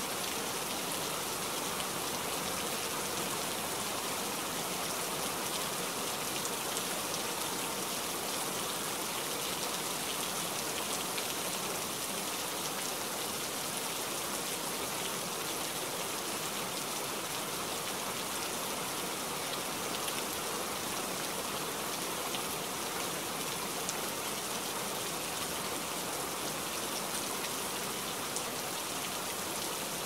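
Heavy monsoon rain pouring down steadily, a constant even hiss that neither builds nor eases.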